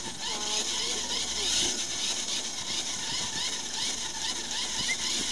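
Lure-coursing machine reeling in the lure line, its line and pulleys giving a fast, steady mechanical ticking and squeaking, several times a second.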